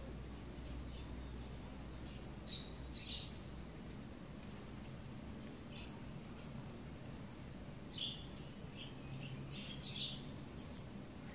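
Short bird chirps in small clusters: a pair about two and a half seconds in, a single one near six seconds, another around eight seconds and a quick burst near ten seconds, over a faint steady high hiss.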